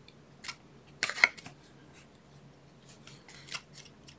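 Paper-crafting handling sounds at a desk: a few short, crisp rustles and clicks of cardstock and tools being moved. The loudest cluster comes about a second in, and another around three and a half seconds.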